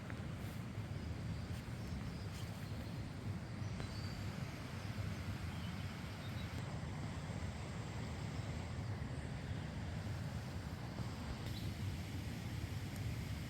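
Wind rumbling and buffeting on the microphone outdoors, with a few faint high chirps.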